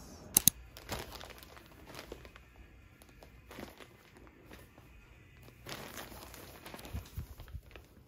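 Plastic wrapping of a duvet cover set crinkling as it is handled and turned over, in scattered faint rustles. Two sharp clicks about half a second in, and a few soft low thumps near the end.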